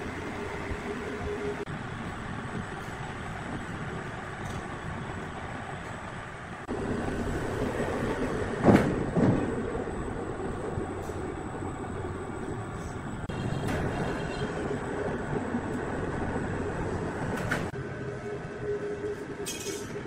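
Sawmill machinery running: a steady mechanical rumble with a hum, growing louder about a third of the way in, with two heavy knocks near the middle.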